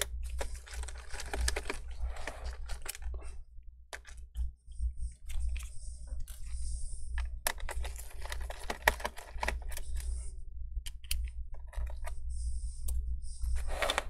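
Rapid small clicks and taps of a precision Phillips screwdriver turning out screws from a laptop's bottom case, with brief stretches of light high scraping.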